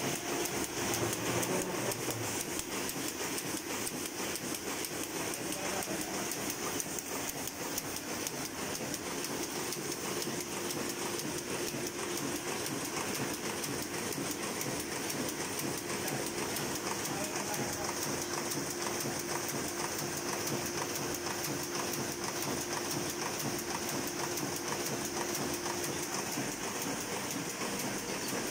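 Heidelberg SORKZ two-colour sheet-fed offset press running at speed: a steady, rapid mechanical clatter from the feeder, grippers and cylinders as sheets are fed through, with a faint steady tone underneath that stops near the end.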